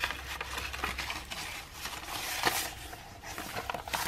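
Old magazine pages rustling as hands handle them and roll them up, with a louder rustle about two and a half seconds in.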